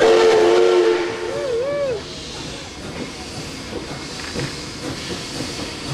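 Steam locomotive whistle blowing: a loud, steady two-note blast of about a second, then its pitch wavers up and down twice before it stops. A steady hiss of escaping steam carries on from the moving locomotives after it.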